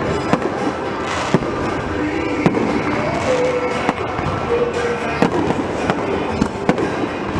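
Stadium fireworks display: a dense crackling haze with sharp bangs going off irregularly, about one a second, and music playing underneath.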